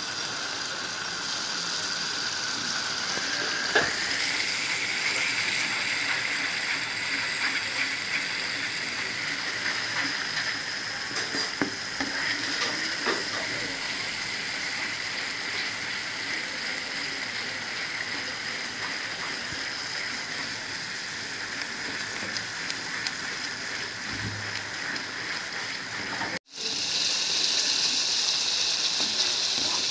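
Spiced onion-tomato masala paste sizzling and bubbling in hot oil in a kadai as it is stirred with a wooden spatula, with a few light knocks of the spatula. Near the end the sound cuts out for an instant and comes back a little louder.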